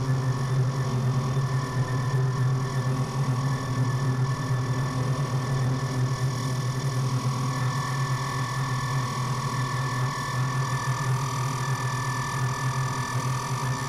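Noisy ambient synthesizer drone from a Moog Grandmother analog synth and Eurorack modules: a steady low hum under sustained high tones and hiss. The high tones grow a little louder about two-thirds of the way through.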